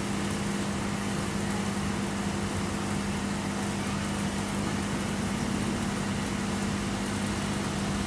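Steady machine hum: a constant low drone with a faint even hiss, unchanging throughout.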